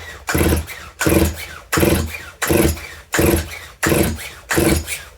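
Stihl MS181 chainsaw engine being cranked over with its pull-cord recoil starter during a spark check: a quick run of about seven even pulls, roughly one every 0.7 seconds, the engine spinning but not firing.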